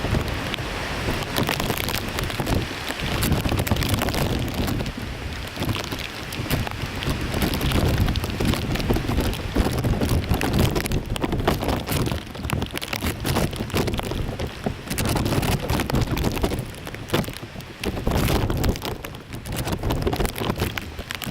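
Gusty wind buffeting the microphone: a rough rumbling hiss that surges and drops irregularly, with no steady tone in it.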